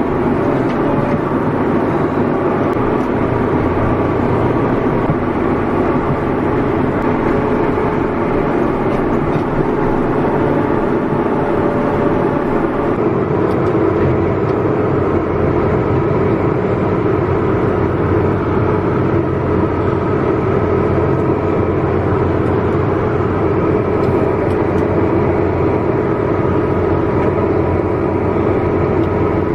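Farm tractor's diesel engine running steadily, heard from inside the cab, its note shifting slightly about 13 seconds in.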